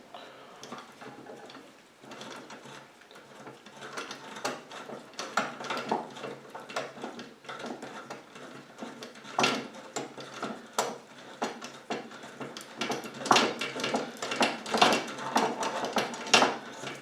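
Irregular metallic clicks and ratcheting from a bicycle rear wheel hub as its cone and axle nuts are tightened down on the loose ball bearings. The clicking grows busier and louder in the second half.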